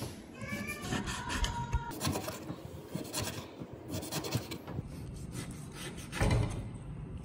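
Kitchen knife slicing raw veal on a wooden cutting board: repeated cutting strokes, each ending in a tap or scrape of the blade on the wood. A brief high squeaky tone comes in the first second or so, and a heavier thump about six seconds in.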